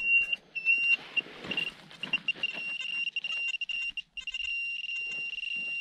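Metal detector's high target tone sounding over a buried find: short broken beeps at first, then held for a couple of seconds, cut off briefly near the middle, and held again. Faint scraping and clicks of digging in soil lie underneath.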